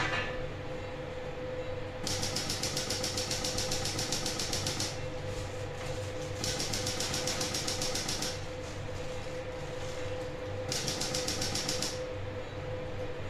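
Intracorporeal lithotripter firing on a urinary stone in three bursts, the longest about three seconds and the last about one: each burst is a rapid, even run of clicks. A steady equipment hum with a fixed tone runs underneath.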